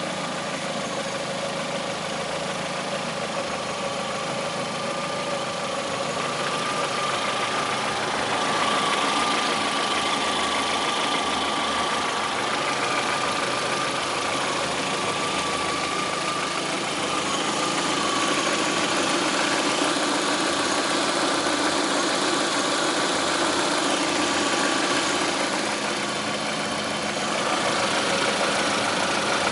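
Lada Priora's VAZ-21126 16-valve engine running at idle with a knock, which the owner puts down to the Suprotec additive he put in the oil.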